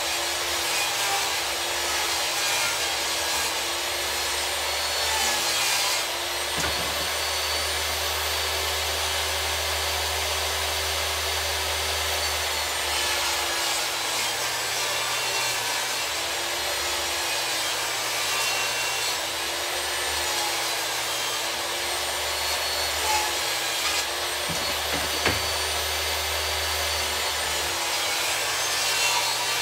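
Portable jobsite table saw running and ripping narrow strips of wood. It makes a steady machine noise with a tone that wavers in pitch as the stock is fed through, and there are a couple of short knocks, the sharpest near the end.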